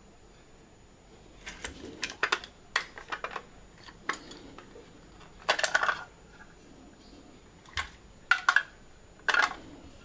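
Hard plastic clicks and clacks from a desktop pencil sharpener being handled, in short clusters with pauses between them, as its clear plastic shavings drawer is slid out and set down.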